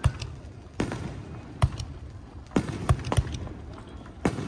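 Aerial fireworks shells bursting: a quick run of about seven sharp bangs at uneven gaps of half a second to a second, with a low rumble and echo between them.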